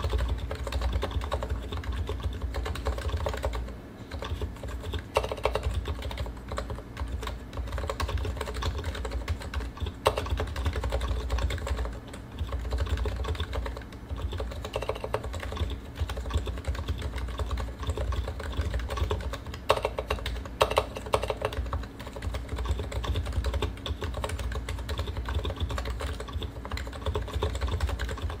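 Continuous typing on a Realforce R2 PFU Limited keyboard, stock PBT keycaps over uniform 45 g Topre electrostatic capacitive rubber domes with silent sliders. The keystrokes run in a dense stream, with a few brief pauses and some louder strokes.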